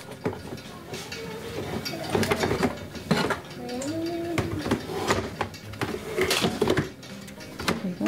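Plastic flow-style honey frame being handled, giving a run of small clicks and rattles as it is turned over and set toward the wooden hive box.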